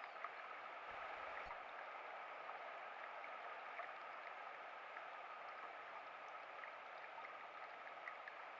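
Small stream (a Highland burn) running steadily, with faint scattered ticks of splashing water.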